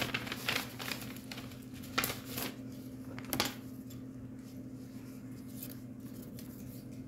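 Paper being handled: a folded paper slip is opened, giving several crisp crackles in the first three seconds or so, then it goes still. A steady low hum runs underneath.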